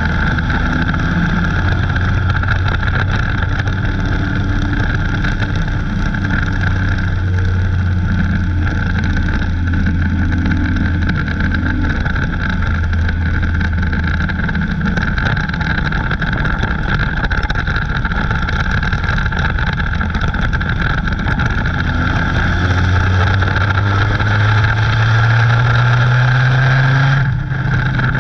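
Dirt-track race car's engine heard from inside the cockpit at racing speed, a loud, steady drone. Over the last few seconds the pitch climbs as it revs higher, then the sound cuts out for a moment near the end as the throttle is lifted.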